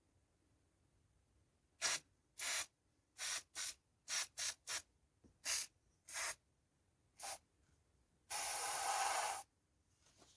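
A pressurised spray hissing in about ten short, irregular bursts, then one longer burst of about a second near the end.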